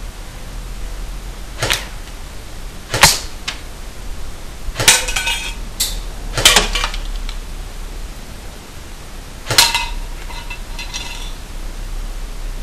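Airsoft BBs striking upright tin can lids used as targets: about five sharp metallic clinks at irregular intervals, each with a brief ring, as lids are hit and knocked over. There are a few lighter clinks between them.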